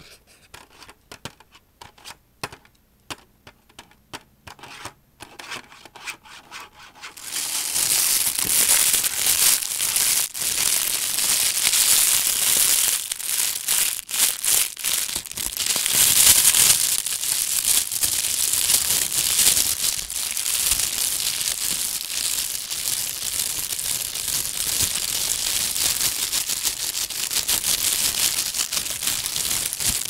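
Faint scratching and light taps, then about seven seconds in a loud, continuous rubbing and rustling right against the microphone that keeps on steadily.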